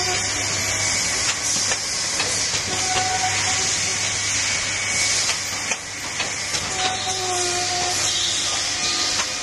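Automatic cup filling and sealing machine running: a steady, loud hiss of air with scattered light clicks from its moving parts over a low hum, and a faint whine that comes and goes twice.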